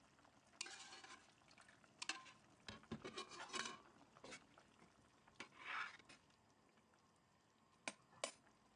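Faint stirring of a meat stew in a stainless-steel pot, with a few soft swishes and light clicks of a spoon against the metal, the last two near the end.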